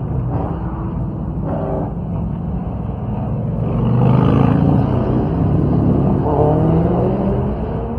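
A car engine running, rising in pitch and loudness about four seconds in and easing off again, with another smaller rise and fall near the end.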